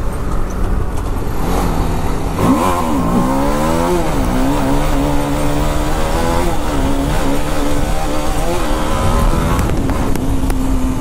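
Motorcycle engine revving up sharply about two seconds in as the rider lifts a wheelie, then dropping back and running at a steady cruising pitch with a couple of small rises in revs.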